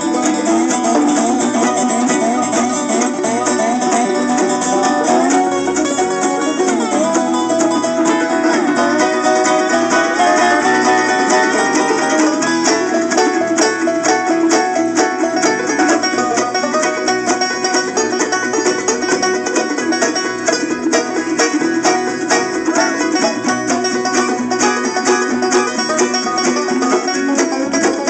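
A bluegrass band playing live through a PA, with banjo rolls prominent over acoustic guitar and electric bass.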